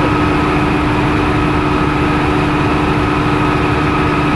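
Bell OH-13 Sioux helicopter in flight, heard from inside its cockpit: the piston engine and rotor running steadily, a loud, even drone with a constant hum over a low throb.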